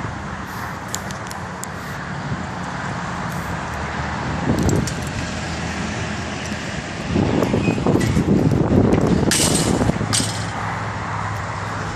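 Steady hum of traffic from a nearby highway, with light metallic clinks and rattles from a chain-link gate being handled. The background swells louder for a few seconds past the middle.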